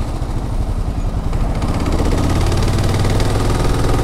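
Motorcycle engine idling at a standstill, growing louder and fuller about a second and a half in.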